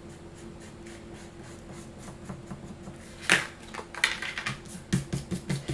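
Card stock being handled and rubbed by hand on a cutting mat: faint rubbing at first, then a louder paper rustle about three seconds in, then a run of quick rubbing strokes.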